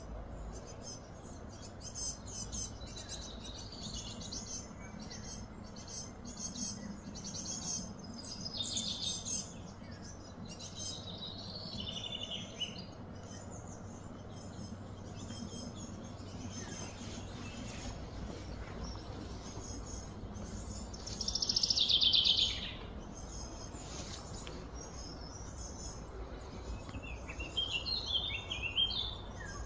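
Birds calling: scattered high chirps and short trills, with one louder, buzzy call about three-quarters of the way through and a quick run of chirps near the end, over a faint low steady hum.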